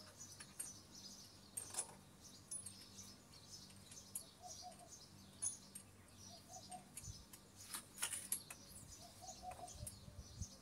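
Small birds chirping and twittering, with short high calls and little runs of repeated notes. A few faint clicks sound about two seconds in and again around eight seconds.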